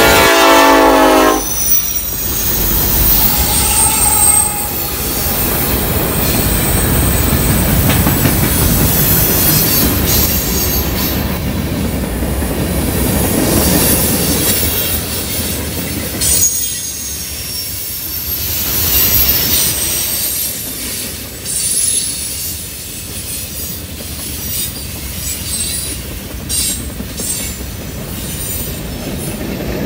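Norfolk Southern freight train led by SD70ACe locomotives: a locomotive horn chord cuts off about a second in. Then a long string of freight cars rolls past at speed, a steady rumble of wheels on rail with thin, high wheel squeal on the curve.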